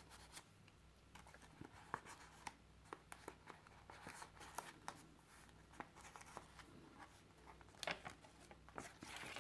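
Faint rustling and light ticks of paper and card pages of a handmade junk journal being handled and turned, with a steady low hum beneath.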